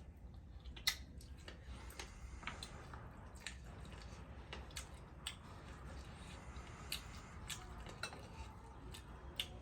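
Faint eating sounds: scattered small clicks, about one a second, with soft wet mouth noises of chewing.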